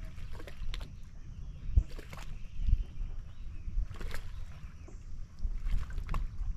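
Low, steady rumble of water and wind around a bass boat, with scattered light clicks and knocks from the angler working his tackle on the deck.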